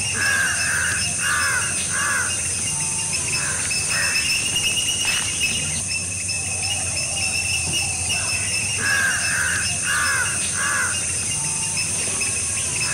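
Outdoor bird ambience: a bird gives three harsh, arched calls in quick succession about a second in, and the same group of three again about nine seconds in, over a steady high-pitched hiss.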